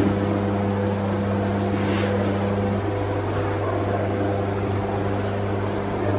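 Steady machine hum from a Vantage CNC router and its workstation running idle, with no cutting heard. A brief hiss comes about two seconds in.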